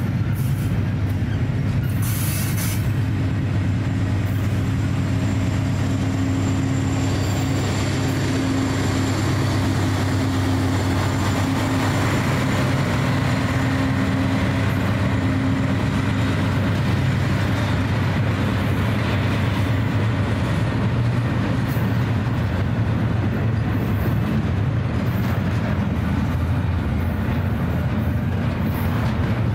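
Double-stack intermodal freight train rolling past at steady speed, its wheels and cars making a continuous low rumble. A mid-train diesel locomotive on distributed power goes by about halfway through, adding a steady engine hum that fades soon after.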